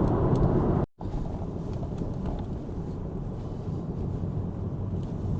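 Steady road and engine noise of a moving car, heard from inside the cabin. It drops out for an instant about a second in and comes back quieter.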